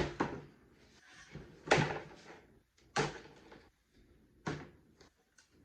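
Four separate knocks and clatters, each dying away quickly: handling noise from working a hot sheet of butyl sound deadener onto a plastic car door panel.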